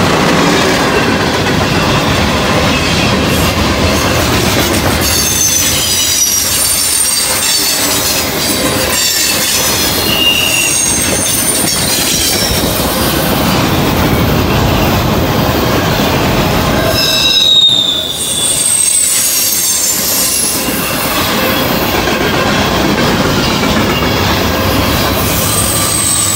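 Norfolk Southern freight train's cars rolling past close by: a steady rumble and clatter of steel wheels on rail, with high-pitched wheel squeal coming and going.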